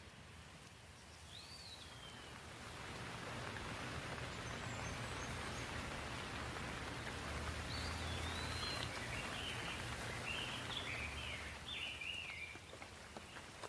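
Rain falling steadily, swelling in a couple of seconds in and easing near the end, with small birds chirping over it, most busily in the second half.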